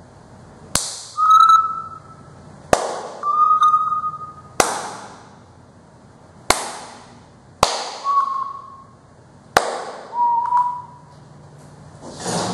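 Six sharp hand claps, one every one to two seconds, working an Arduino clap-activated lamp. After four of them an electronic beep answers, a short steady tone whose pitch marks the lamp's brightness step, each beep a little lower than the one before.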